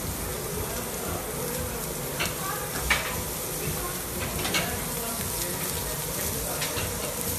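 Thick bone-in steaks sizzling on a hot grill, a steady hiss, with a few sharp clicks and knocks as the meat is handled, the loudest about three seconds in.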